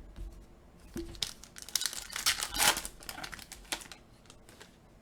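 Foil wrapper of a trading-card pack crinkling and tearing as it is ripped open, a run of sharp crackles from about one second in to nearly four seconds.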